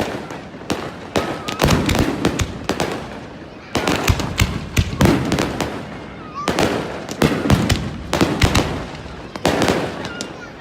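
Fireworks display: rapid volleys of bangs and crackles, with a fresh salvo about every three seconds.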